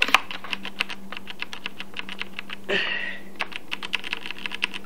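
Typing on a Rosewill RK9000BR mechanical keyboard with Cherry MX Brown switches: a fast run of key clicks, several a second.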